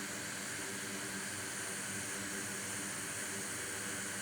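Steady airflow hiss from a fan or blower at a soldering bench, with a faint low hum underneath, unchanging throughout.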